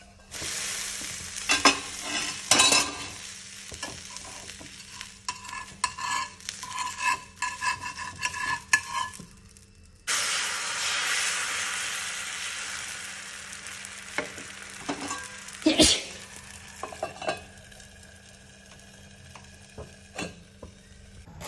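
Coconut being grated in the kitchen: irregular rasping scrape strokes with small clicks and clinks. About ten seconds in the sound cuts to a steady hiss that slowly fades, with a few sharp knocks.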